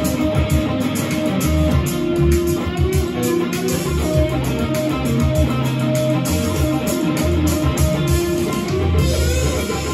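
Stratocaster-style electric guitar playing an improvised lead line of held and moving single notes, with a steady beat and a bass line underneath.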